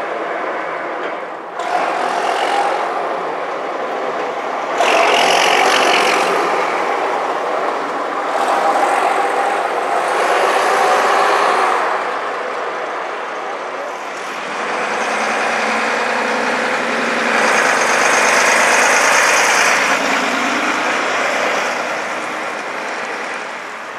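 Diesel engines of vintage double-decker buses pulling away and driving past along a street, one after another in several passes, with a few louder swells as buses come close; near the end a Routemaster goes by close.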